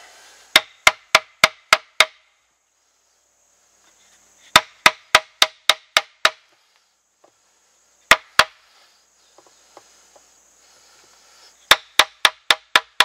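Wooden baton striking the spine of a fixed-blade knife, driving the blade into a green stick to cut a V-notch. Sharp knocks come in quick runs of about six, roughly three a second, with pauses between runs and one short pair of strikes in the middle.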